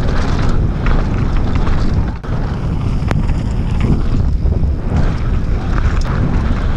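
Wind rushing over the microphone of a camera mounted on a mountain bike descending fast on a loose dirt and gravel trail, mixed with rolling tyre noise and a few sharp rattling clicks from the bike.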